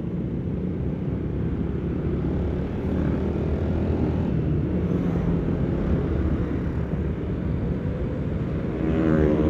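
Steady drone of a Honda PCX 160 scooter riding in slow traffic among many other motorcycles, with engine and road noise blended together. Near the end, an engine note rises as one of the bikes speeds up.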